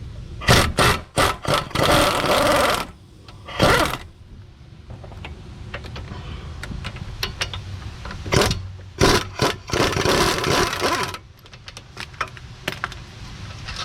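Power wrench with a 15mm socket running in several short bursts and two longer runs, about two seconds in and again around nine to eleven seconds, backing out the caliper bracket bolts on a front brake.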